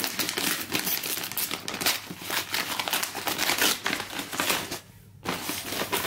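Gift-wrapping paper being ripped and crumpled off a cardboard box, the paper held down with very sticky double-sided tape. The ripping pauses briefly about five seconds in.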